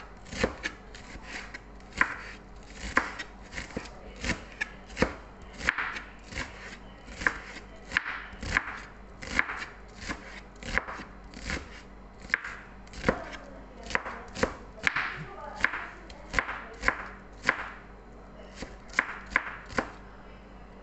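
Chef's knife chopping red onion on a cutting board: a run of sharp knocks, about two a second, unevenly spaced.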